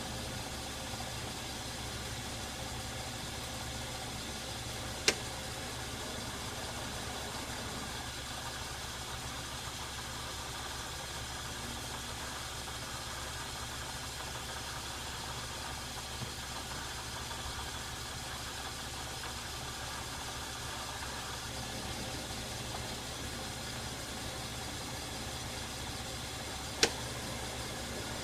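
Metal lathe running steadily in back gear during single-point thread cutting, a steady machine hum. Two sharp clicks stand out, one about five seconds in and one near the end.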